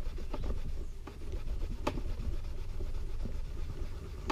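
Steel wool scrubbing back and forth over a blackened steel knife blade: a rapid, dry scratchy rubbing as the black coating is worn off to bare the engraved mark. A sharp click comes about two seconds in.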